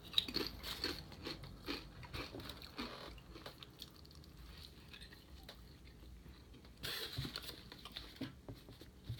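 A person chewing and biting food close to the microphone: soft, irregular wet clicks and crunches, busier in the first few seconds and again about seven seconds in.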